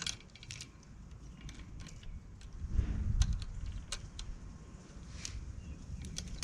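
Light metallic clicks and clinks as a bicycle chain and derailleur are handled, with one louder low knock about three seconds in.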